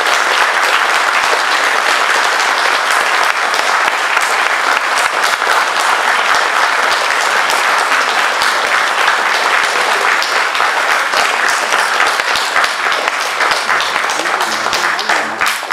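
Audience applauding, a dense steady clapping that thins out near the end.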